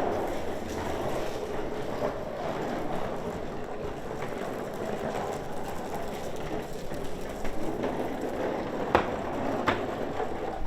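Steady rattling rumble of small hard wheels rolling over a road, with two sharp knocks near the end.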